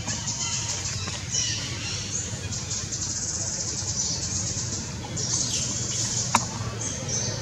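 Forest ambience: a high, pulsing buzz and bird chirps that swell and fade over a steady low hum, with one sharp click about six seconds in.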